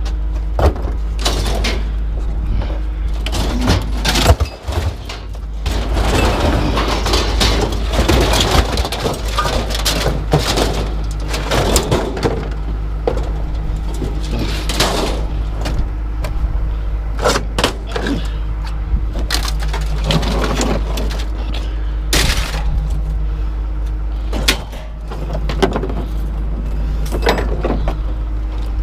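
A steady engine hum with repeated irregular knocks and clanks over it.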